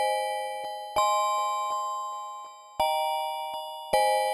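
Gentle opening music of bell-like chime chords. Four chords are struck about a second apart, and each rings out and fades before the next.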